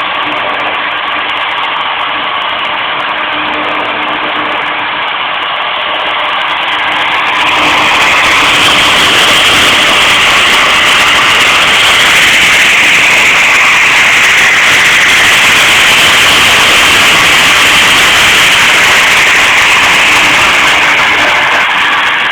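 Cable-driven CNC milling machine running with a steady motor noise, becoming louder and hissier about seven seconds in and staying so until it eases slightly near the end.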